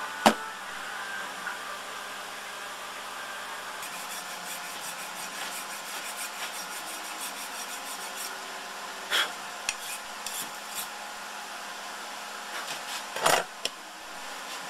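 Hard plastic parts being handled: a 3D-printed propeller blade knocked, rubbed and fitted against a propeller hub. There is one sharp snap about a quarter second in, a run of small clicks in the middle, and short scraping rubs later.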